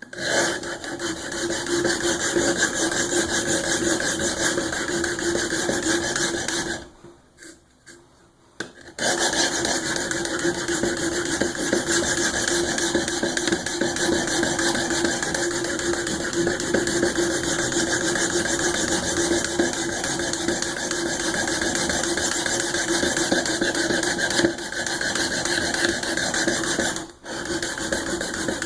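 A Cold Steel SRK's VG-1 steel blade being stroked back and forth over the diamond plate of a Work Sharp Guided Sharpening System, a continuous rasping that evens out the bevels. The grinding stops for about two seconds some seven seconds in, then resumes, with a brief break near the end.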